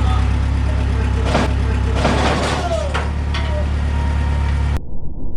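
Engine of the machine lifting the log on its forks, idling steadily with a few knocks and clanks; the sound cuts off suddenly near the end.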